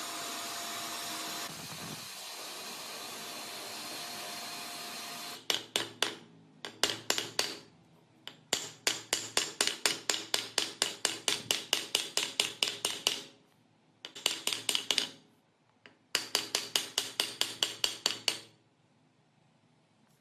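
A power tool runs steadily for about five seconds and stops. Then a hammer strikes metal in quick, even runs of blows, about five a second, pausing briefly between runs.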